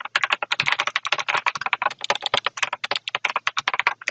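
Fast typing on a computer keyboard: a quick, uneven run of key clicks, about eight a second.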